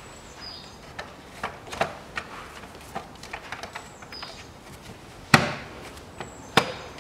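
Plastic engine cover of a Volkswagen Tiguan 2.0 TSI being pressed down onto its mounts, with small clicks and knocks of plastic and two loud sharp snaps near the end as it seats.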